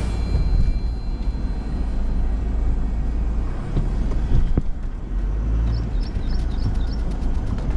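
Toyota Hilux driving off-road: a steady low rumble of engine and tyres, with a sharp knock about four and a half seconds in and a few short high chirps near the end.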